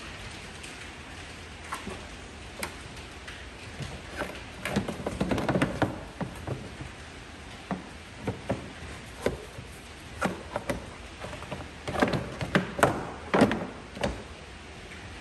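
Irregular clicks, taps and knocks of tools and parts being handled during engine work, in two busier clusters about five seconds in and again near the end, over a steady low hiss.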